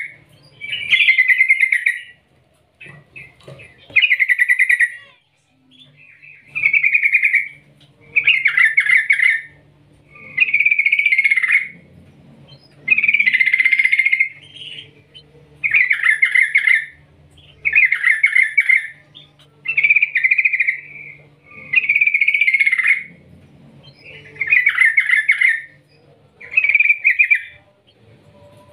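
Yellow-vented bulbul (trucukan) singing loud, bubbly phrases, each about a second long, repeated about every two seconds.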